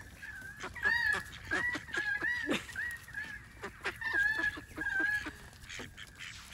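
White domestic ducks calling and feeding: repeated short calls that stop about five seconds in, over many quick clicks from bills pecking at food.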